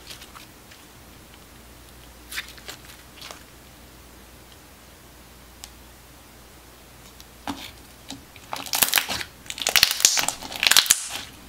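Slime being squeezed and pressed by hand, crackling. A few soft clicks come in the first half, then a dense crackling from about eight seconds in, which is the loudest part.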